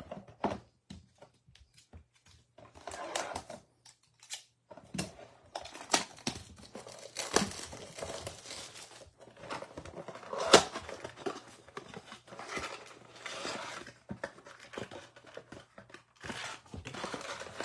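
Cardboard trading-card blaster box being torn open by hand: irregular tearing, rustling and sharp clicks of the card stock as the flaps are pulled back, the loudest snap about ten and a half seconds in.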